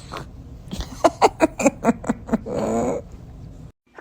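Newborn baby's vocal sounds between sneezes: a quick run of about seven short sounds, then one longer drawn-out whine about two and a half seconds in.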